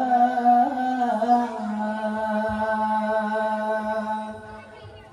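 Boys' voices chanting an Acehnese dike (devotional dzikir) in unison, drawing out one long held note with a brief waver about a second in. The chant fades away near the end.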